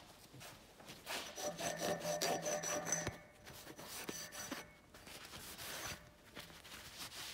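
Cloth rag rubbed back and forth over a steel Bahco 30 alligator wrench held in a vise, wiping it down. The strokes are loudest in the first few seconds and softer after about three seconds in.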